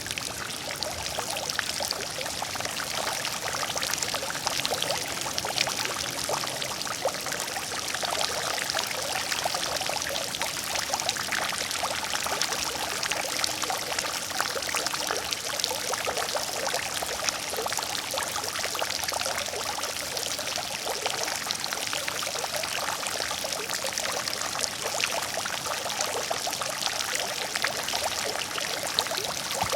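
Water fountain running steadily: continuous splashing and trickling of falling water, even and unbroken.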